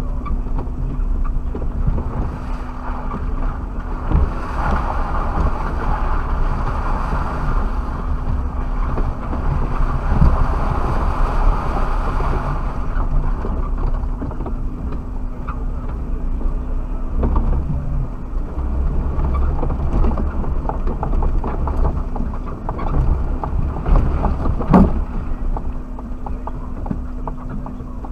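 Suzuki Jimny driving over rough quarry ground, heard from inside the cab: a steady low engine and drivetrain rumble with knocks and jolts from the bumpy terrain. The noise thickens between about 4 and 13 seconds, and there is a sharp knock a few seconds before the end.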